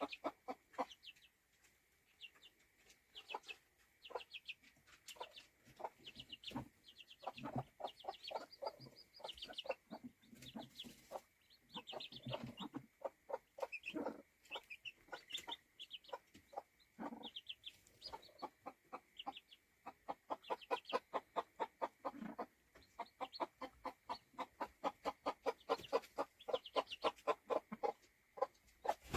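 A brooding hen clucking in quick short calls, with newly hatched chicks peeping high above her. The calls come thicker and louder from about twenty seconds in.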